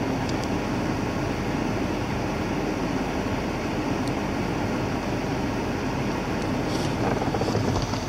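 Volkswagen Touareg running steadily at idle with its engine and fan noise, as when the repaired air conditioning is run and checked.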